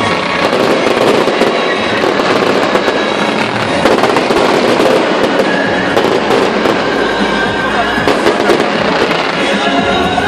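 Stadium pyrotechnics going off continuously: a dense stream of crackles and sharp pops from fountains of sparks and aerial bursts, with music playing under it.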